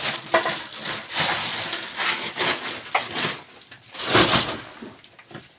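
Loose planks, firewood and corrugated tin sheets clattering and scraping as they are shifted with a stick, in an uneven run of knocks and scrapes with the loudest clatter about four seconds in.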